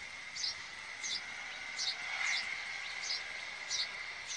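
Chirping ambience: short high-pitched chirps repeat evenly, about three every two seconds, over a steady high-pitched drone.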